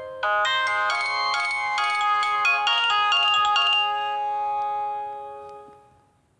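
Nokia N70 mobile phone ringtone: a quick, bright electronic melody of several layered parts, ending on a held chord that fades out near the end.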